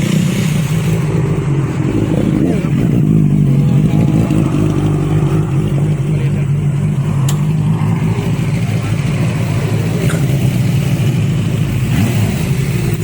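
Benelli TNT600i inline-four motorcycle engine running at a steady, even pitch, with no big revs.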